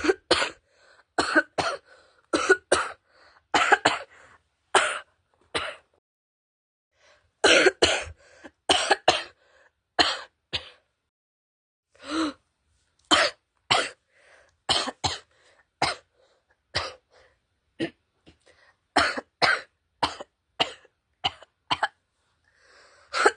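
A girl coughing over and over: short, harsh coughs, singly or in quick runs of two or three, broken by two pauses of a second or more.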